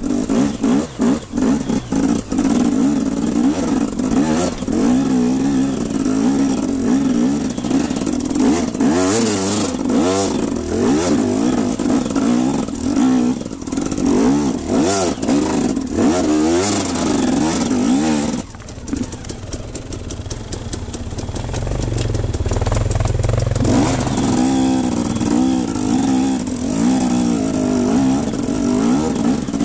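KTM EXC 250 single-cylinder two-stroke dirt bike engine revving up and down under constant throttle changes as it climbs a rocky trail, with rocks and the bike clattering. About two-thirds through the engine drops back for a few seconds, then picks up again.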